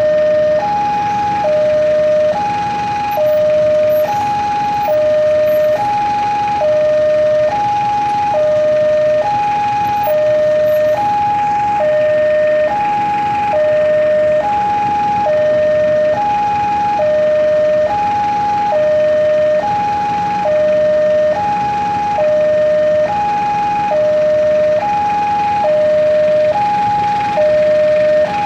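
Railway level-crossing warning alarm sounding a steady two-tone electronic ding-dong, alternating a higher and a lower tone about once every second, signalling that a train is approaching the crossing.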